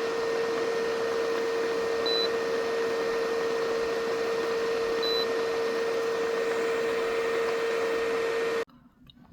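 A small electric appliance running with a steady hum and a whirring rush, then shutting off abruptly near the end.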